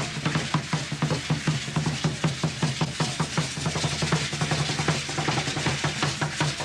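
Music with a fast, steady drum beat, about five or six strikes a second, over a low held tone.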